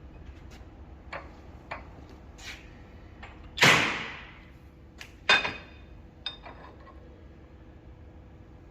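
Metal knocks and clicks, with two loud ringing metal impacts about three and a half and five seconds in, from steel tooling working on a bent differential axle being straightened.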